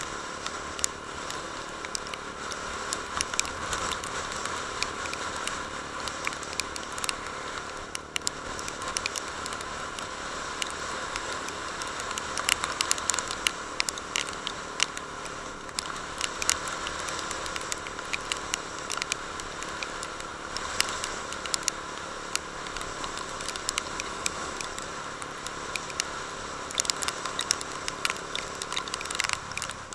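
On-board sound of a Honda CB150 Invicta motorcycle underway: a steady rushing noise over the faint note of its single-cylinder engine, with many sharp crackles and taps throughout.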